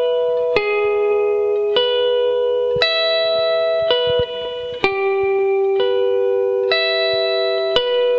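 Electric guitar picking a slow arpeggio across the G, B and high E strings, alternating down and up strokes. Single notes are struck about once a second, each ringing into the next.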